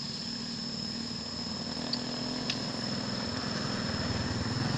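An engine running steadily at idle, getting slightly louder, over a continuous high insect trill, with two faint clicks about two seconds in.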